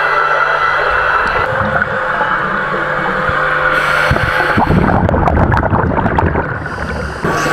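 Underwater lake sound: a steady motorboat engine and propeller whine carried through the water over a low rumble. From about four and a half seconds to seven seconds there is a dense patch of crackling bubbles. The sound changes abruptly near the end.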